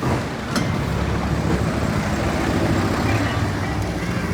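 Crowded Indian street ambience: a motor vehicle engine running close by over steady traffic noise and people's voices, with a sharp knock about half a second in.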